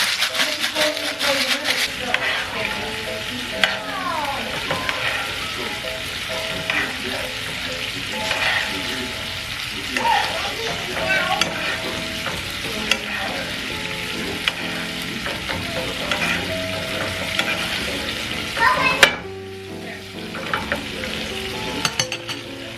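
Food sizzling as it fries in a pan, with scraping and clicking from stirring. The sizzling cuts off suddenly near the end.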